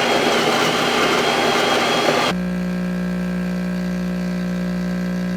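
Jura E8 bean-to-cup espresso machine's built-in burr grinder grinding beans, then cutting to a steady mechanical buzzing hum about two seconds in as the machine moves from grinding to the brewing stage.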